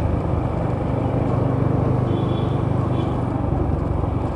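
Motorcycle engine running steadily while riding, under a constant rush of wind noise.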